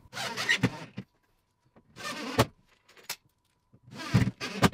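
Power drill driving wood screws through a metal wall bracket into a chipboard wall, run in three short bursts.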